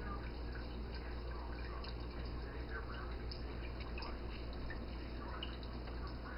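Water trickling and dripping in a small tabletop fountain, many small drops falling, over a steady low hum.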